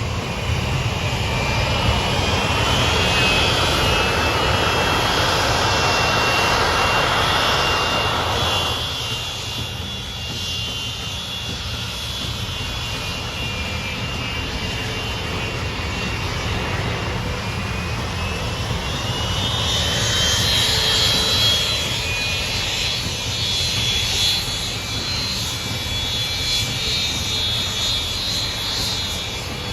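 Jet aircraft engine noise as a jet flies past, loudest in the first eight seconds and dropping away sharply about nine seconds in. A high whine rises in pitch again about twenty seconds in as jet noise builds once more.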